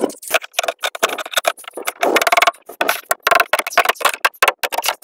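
Claw hammer knocking open the metal clips on a plywood shipping crate: a quick, irregular series of metallic taps and clacks, some with a short ring.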